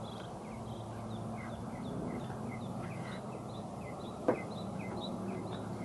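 Birds chirping steadily, many short high chirps, over a low steady hum, with one sharp click about four seconds in.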